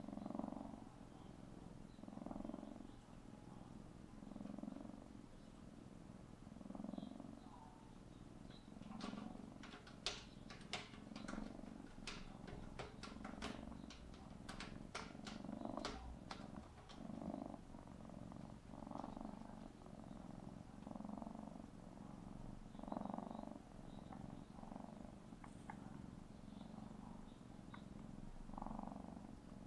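Young tabby kitten purring steadily, the purr swelling and fading with each breath. From about nine seconds in, for some seven seconds, it smacks its lips in a run of quick, sharp clicks as it kneads.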